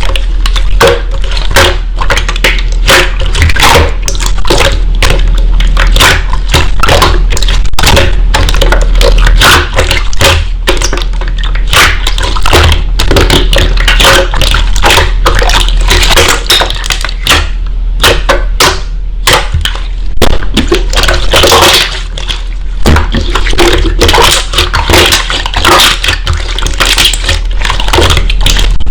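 Slime being squished and poked by hand: a dense, irregular run of sticky pops and crackles over a steady low hum.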